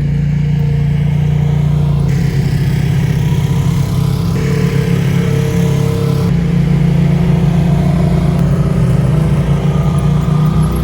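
Off-road Jeep's engine running steadily, a loud low drone with rumble, its tone shifting abruptly about two, four and six seconds in.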